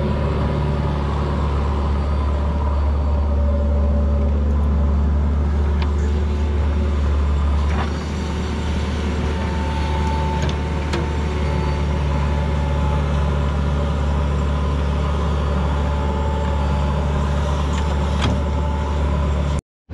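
Diesel engines of a JCB backhoe loader and a tractor running steadily as the backhoe digs and dumps soil, with a few sharp clanks. The sound cuts out briefly just before the end.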